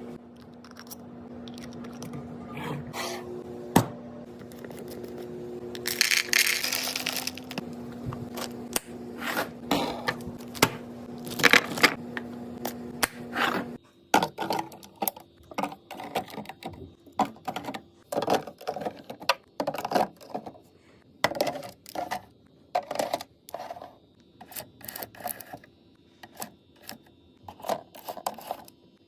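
Fridge being restocked: containers, bottles and packets clicking, knocking and scraping as they are handled and set on shelves, with a burst of rustling about six seconds in. A steady low hum sounds under the first half and stops at about fourteen seconds, after which quick small clicks and taps go on.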